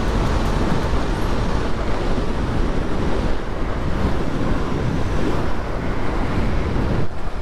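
Steady wind rush and buffeting on the microphone of a KTM Duke motorcycle riding at speed, with road and engine noise underneath. It eases briefly near the end.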